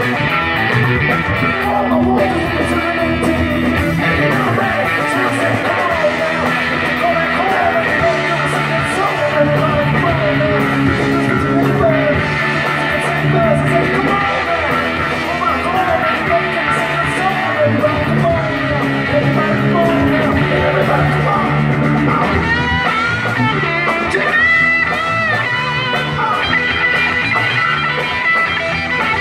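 A band playing live: electric guitars over a drum kit, loud and continuous.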